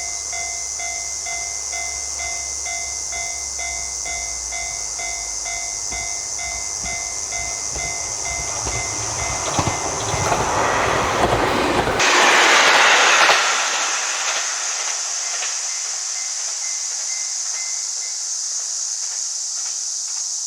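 Japanese railway level-crossing warning bell ringing in a fast, even repeat while a train passes over the crossing. The train's rumble and wheel noise build to a peak about twelve seconds in, then fall away, and the bell stops a few seconds later. A steady high hiss runs underneath.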